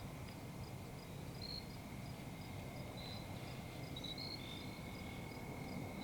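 Insects, crickets or katydids, calling: a steady high trill with regular short chirps and a few longer calls above it, over a low background rumble.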